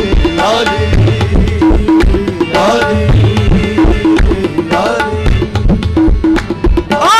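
Qawwali instrumental passage: tabla playing a steady, driving rhythm under harmonium and ensemble, with sharp strokes such as hand claps. A rising melodic phrase comes back about every two seconds.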